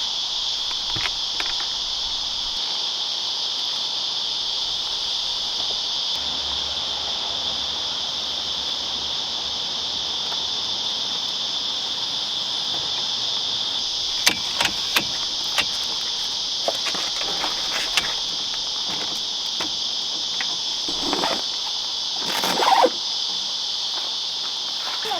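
Insects calling in a steady, high-pitched drone. From about halfway through, a scatter of sharp clicks and knocks is heard, and near the end comes a louder scraping rustle, which is the loudest moment.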